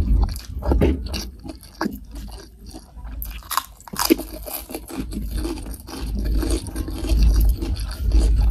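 Close-miked eating sounds: wet chewing of hand-fed mouthfuls of rice and soy-sauce boneless chicken feet, with a few sharper crunchy bites about three to four seconds in.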